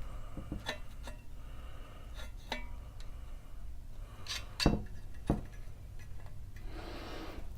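Scattered metallic clicks and light knocks from a GG&G heavy-duty bipod being handled and fitted on a rifle's rail, with two sharper knocks about halfway through.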